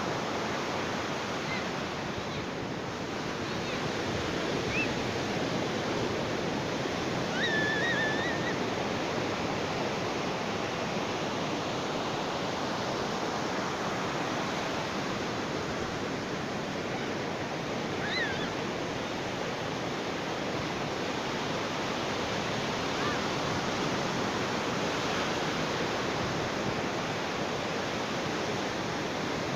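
Ocean surf washing on a beach in a steady, continuous hiss, with a few faint, brief high chirps about a quarter of the way in and again a little past halfway.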